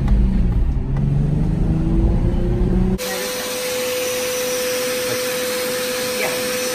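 Nissan 350Z's V6 engine accelerating, heard from inside the cabin, its pitch rising, dipping, then climbing again. It cuts off abruptly about three seconds in and gives way to a small shop vacuum running steadily with a high whine.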